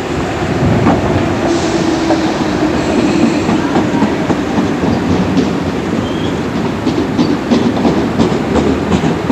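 RER MI79 electric trains moving through the station: a steady low traction hum, with wheels clacking over rail joints in a run of sharp clicks in the second half and a brief high wheel squeal about six seconds in.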